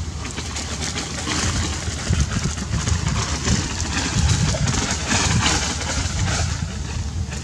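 Dry palm-leaf thatch rustling and crackling as a macaque climbs and pulls at it, loudest in the middle stretch, over a steady low rumble.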